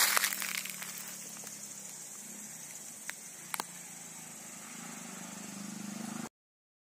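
Steady high-pitched insect chorus in dry scrub, with a loud rustling knock at the start and two sharp clicks past the middle; the sound cuts off abruptly about six seconds in.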